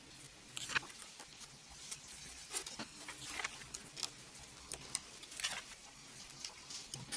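Plastic LEGO bricks clicking and scraping as hands press them together, a scattered run of short sharp clicks sped up by the time-lapse.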